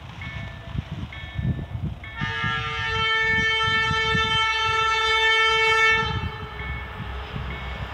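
SU46 diesel locomotive's horn sounding one long blast of about four seconds as the train approaches, ending about six seconds in. Before and after it, a short high beep repeats about once a second.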